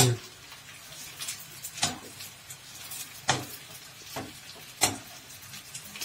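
Dry pasta toasting in hot oil in a deep pan, sizzling faintly and steadily as it browns toward slightly crisp. A utensil knocks against the pan three times, about every one and a half seconds, as the pasta is stirred.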